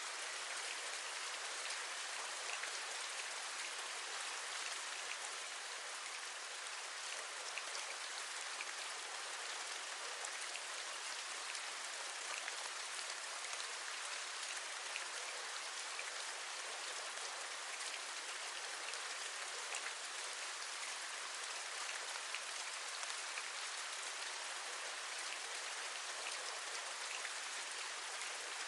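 Steady rain, an even hiss peppered with many small raindrop ticks.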